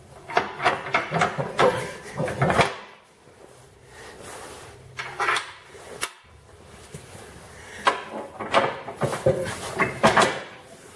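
Metal clanks and rattles from a tractor's three-point hitch as the lower lift arms and hitch pins are handled and fitted by hand to hook up an implement. The knocks come in irregular clusters, busiest at the start and again near the end.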